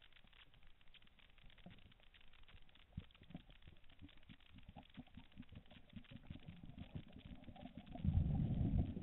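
Underwater, faint scattered clicks and crackles, then about a second of loud low bubbling near the end, typical of a diver's regulator exhaust bubbles on an exhale.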